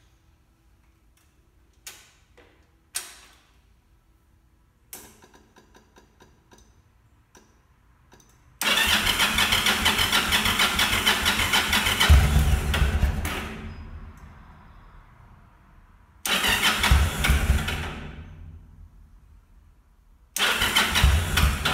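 Yamaha V-Star V-twin motorcycle cranked on its electric starter three times, the first for about four seconds, each time spinning over and winding down without catching: a no-start that persists even with the carburettors cleaned. A few faint clicks and ticks come before the first crank.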